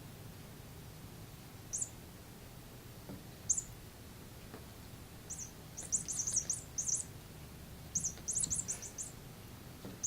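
Cat making high-pitched chirping squeaks: two single chirps, then quick runs of several in a row.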